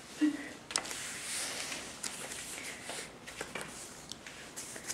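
Light clicks and knocks of plastic stacking-toy rings being handled and set down, with a soft rustle and a short vocal sound near the start.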